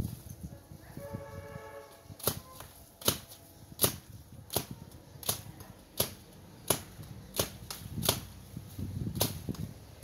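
Sharp, regular chopping strokes of a hand cutting tool at brush stems, starting about two seconds in and coming about every three-quarters of a second.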